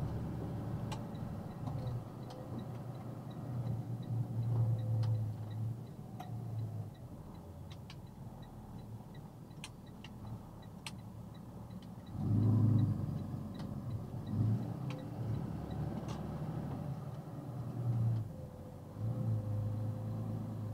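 Box truck engine heard from inside the cab while driving slowly, swelling each time the truck picks up speed, with scattered rattles and knocks. A steady electronic ticking, about two a second, runs for most of the first three quarters and stops near the end, as a turn signal would.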